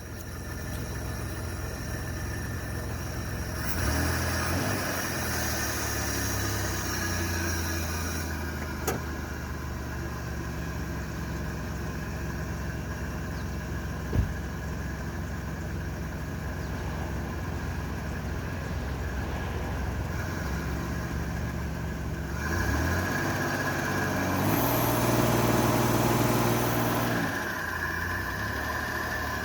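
1998 Dodge Grand Caravan engine running at idle and revved up twice, once a few seconds in and again near the end, under load as it tries to move the van with a blown transmission. Two short sharp knocks come in the middle.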